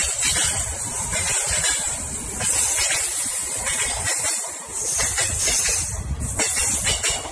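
Two trains passing close by at speed: a passenger train running alongside a military freight train of flatcars carrying army trucks. A loud, continuous rush of wheels on rail and moving air, swelling and easing in surges.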